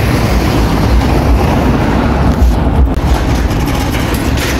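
Steady rumbling noise of a bicycle rolling over a street of concrete paving blocks, with wind buffeting the microphone, heaviest in the low rumble.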